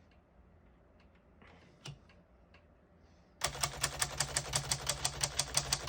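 Keys of an AMC portable typewriter typed in a fast, even run, with the typebars clacking against the platen about eight times a second. The run starts a little past halfway, after a few faint clicks. The keys strike cleanly with none skipping or sticking.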